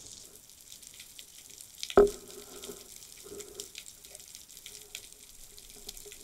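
Underwater sound picked up by a pole-mounted camera: a steady crackle of faint clicks, with one loud knock about two seconds in followed by a short hum that dies away.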